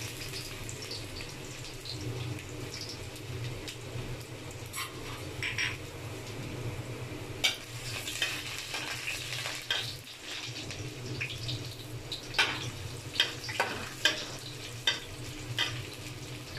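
Chopped garlic and ginger sizzling in hot oil in an aluminium wok, with a slotted metal spatula scraping and clicking against the pan now and then as it is stirred, more often in the second half.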